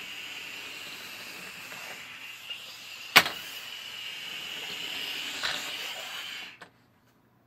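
Air rushing out of the inflated balloon through a toy balloon car's nozzle: a steady hiss with a high whine in it, stopping abruptly as the balloon empties about six and a half seconds in. A single sharp click about three seconds in.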